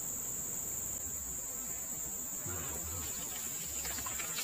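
Steady high-pitched insect chorus, with a short splash near the end as a hooked snakeskin gourami thrashes at the water's surface.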